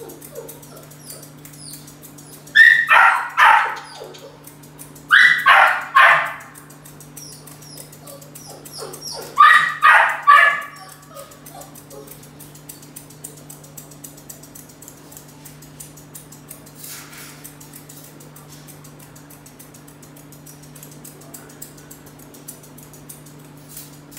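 A dog barking in three short bouts of about three barks each, over a steady low hum.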